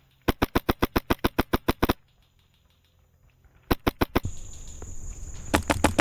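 Airsoft gun firing in quick strings of sharp shots, about nine a second: a run of some fifteen shots in the first two seconds, a short burst of four shots about four seconds in, and a few more near the end. A steady high-pitched tone and a rising rustle come in after the second burst.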